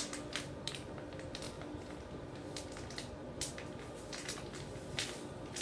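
Wet, sticky glue slime squelching as it is kneaded and pulled apart in the hands. It gives irregular soft squishes and clicks, about two a second, with the loudest near the end. The slime is still runny and not fully set.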